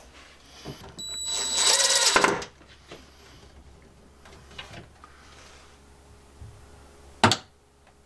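Cordless DeWalt drill running for about a second, driving in a screw for a magnetic cabinet latch. Near the end comes a single sharp knock as the cupboard door is pushed shut against the latch.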